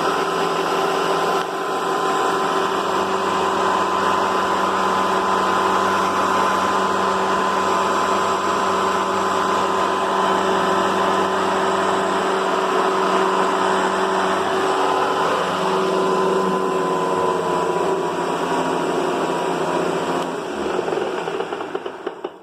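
Hoover upright vacuum cleaner running steadily with a constant motor hum, then switched off about two seconds before the end and winding down.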